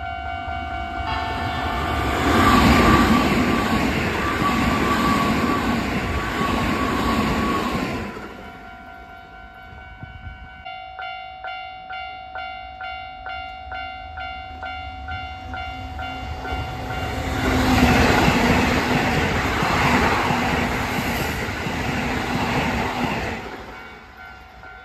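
Two Keisei Line trains passing at speed, one after the other, each swelling to a loud rush of wheels on rails and then fading away. A steady ringing tone sounds beneath them and pulses about one and a half times a second in the gap between the two passes.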